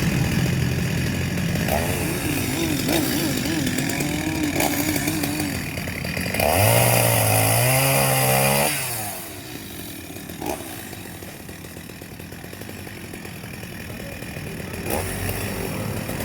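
Chainsaw cutting wood. The engine speeds up and gets louder about six seconds in for roughly two seconds, drops back to a quieter, lower run, then picks up again near the end.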